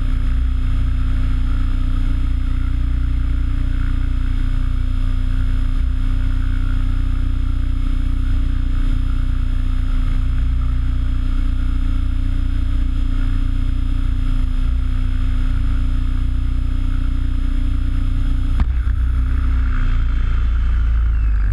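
Align T-REX 800E electric RC helicopter hovering: a steady high-pitched brushless-motor whine over a heavy low rumble of rotor wash, heard from on board. Near the end a short knock comes as it sets down, and the whine begins to fall as the rotor spools down.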